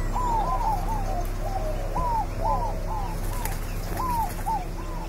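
Bird calls: a steady series of short arching notes, two or three a second, over a steady low hum.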